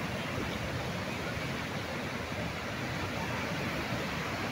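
Dam outflow water rushing and churning into white water, a steady rush with no let-up, with wind buffeting the microphone.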